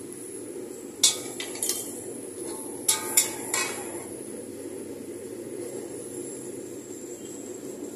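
A metal spatula clanging against a steel wok while stir-frying, about six sharp clanks in two quick clusters, about one and three seconds in. Under it is the steady rushing noise of the wok's burner.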